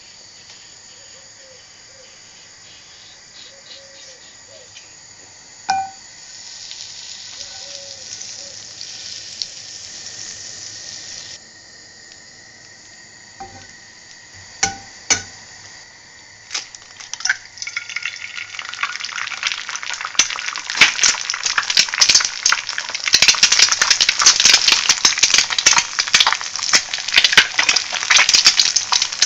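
Egg frying in butter in a de Buyer aluminium non-stick frying pan, with a few clinks first. The crackling sizzle builds from a little past halfway and is loudest near the end.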